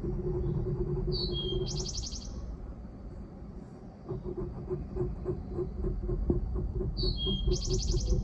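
A small songbird twice gives the same short phrase, a falling whistle running into a fast buzzy trill, about a second in and again near the end. Under it runs a low steady hum and rumble that pulses rapidly in the second half.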